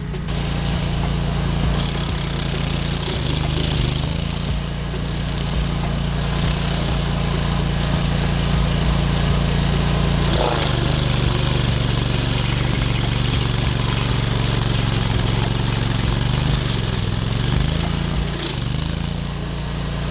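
Engine of a land-clearing machine running steadily under load, its pitch sagging briefly about halfway through and again near the end as it takes on more work, over a constant mechanical clatter and hiss.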